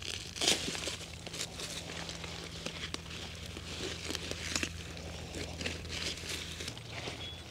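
Rustling, crinkling and irregular crackles of weeds being pulled from a garden bed, over a steady low hum.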